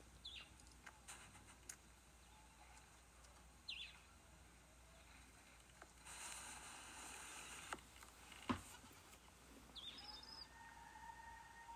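Faint rural ambience: a few brief, high bird chirps several seconds apart, a single sharp click about eight and a half seconds in, and from about ten seconds a steady insect buzz.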